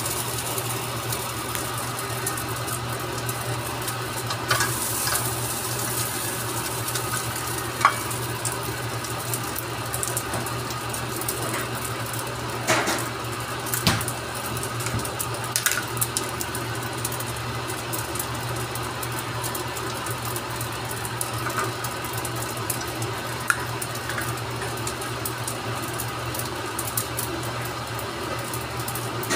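Rice frying and sizzling steadily in a nonstick wok on a gas stove, with a steady low hum underneath and a few scattered clicks and knocks from utensils against the pan.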